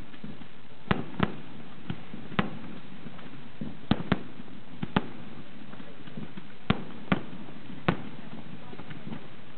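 Aerial firework shells bursting overhead: an uneven string of about a dozen sharp bangs, some coming in quick pairs, over a steady background murmur.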